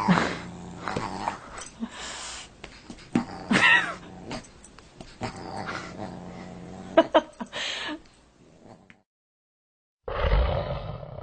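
Pets growling in short, repeated bursts; about ten seconds in it cuts off and a different sound begins.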